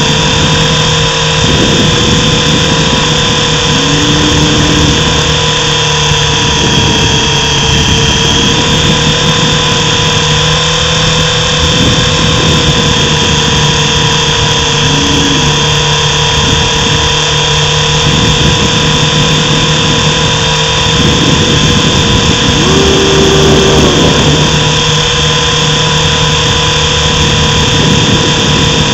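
Mini RC helicopter's motor and rotor whining steadily, heard up close from a camera mounted on the helicopter, with a brief change in pitch a few times.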